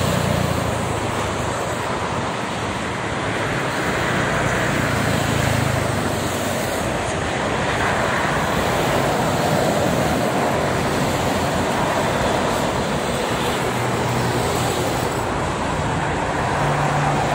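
Steady roar of fast multi-lane highway traffic, with tyre noise from trucks, buses and cars passing below. A low truck-engine drone swells now and then as heavy vehicles go by.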